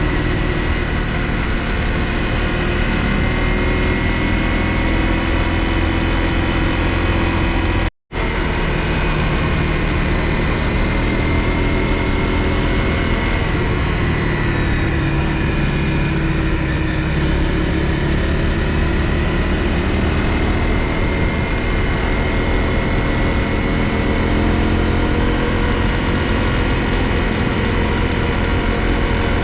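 Honda CRF250L's single-cylinder engine running steadily while riding, its pitch rising and falling gently, over a heavy low rumble. The sound cuts out completely for a moment about eight seconds in.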